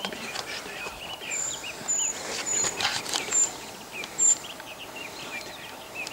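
Small songbirds singing and calling: many short chirping notes, with a run of five brief, very high, thin whistles between about one and four seconds in.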